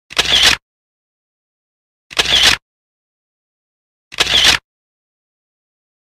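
Camera shutter sound effect of a single-lens reflex camera, clicking three times about two seconds apart, each click lasting about half a second.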